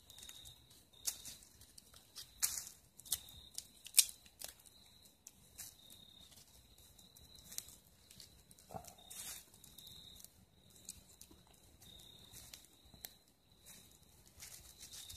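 Dry leaves and small twigs crackling and rustling while a small kindling fire is fed by hand, with scattered sharp snaps, the loudest about four seconds in. A faint steady high-pitched tone runs underneath.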